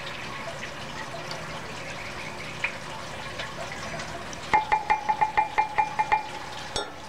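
Silicone spatula stirring lye solution in a Pyrex glass measuring cup: soft liquid swishing with light ticks. About four and a half seconds in, a quick run of about a dozen taps against the glass rings out for a second and a half, and one more click follows near the end.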